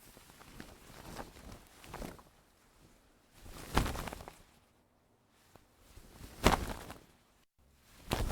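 A boat's sail flapping, whipped and thrown around by the wind in irregular gusts: a few soft flutters, then three loud flaps, the last right at the end, with near-quiet gaps between.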